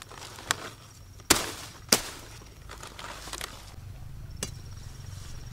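A large knife chopping through a cabbage's stalk: a light chop about half a second in, then two loud, sharp chops about half a second apart, and a softer knock later.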